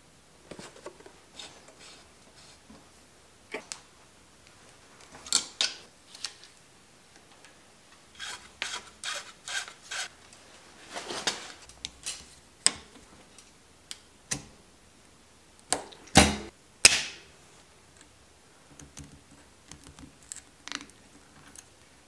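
Bike-workshop handling sounds: metal parts clicking and clinking and a shift cable rubbing as a Shimano Deore XT rear derailleur is fitted and its cable threaded through. Scattered short clicks and scrapes throughout, with the loudest, two sharp knocks, about two-thirds of the way in.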